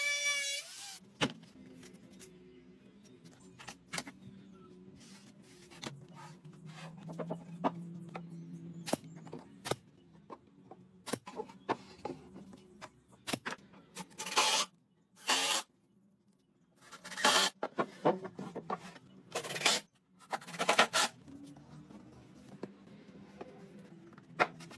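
Hand woodworking noises: scattered knocks and taps, then several loud, short, noisy strokes in the second half, over a faint low hum.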